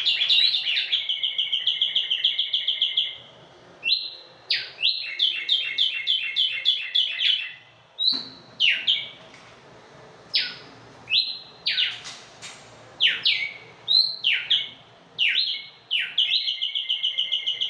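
Caged tumbayegua songbirds singing repeated bright phrases. Each phrase opens with a sharp note sliding downward and often runs on into a fast rattling trill, and the phrases recur every one to three seconds.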